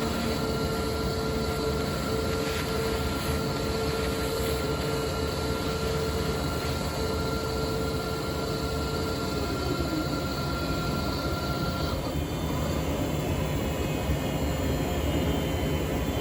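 CNC router running while cutting a pickguard: a steady machine noise with a spindle whine on top. The lower whine drops in pitch and fades a little past halfway, and a higher whine cuts off about three-quarters of the way through, while the steady noise goes on.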